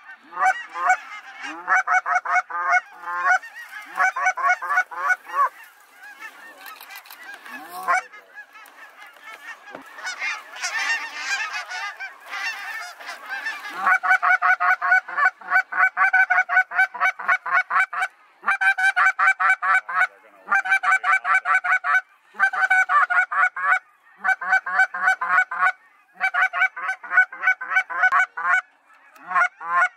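Goose honking: runs of rapid short honks broken by brief pauses, with a dense chorus of many geese at once from about ten to thirteen seconds in.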